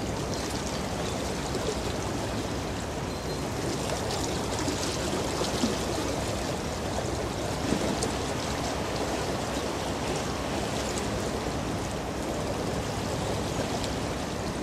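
Water churned up by a passing large container ship's hull, its bow wave and propeller wash: a steady rushing, splashing sound.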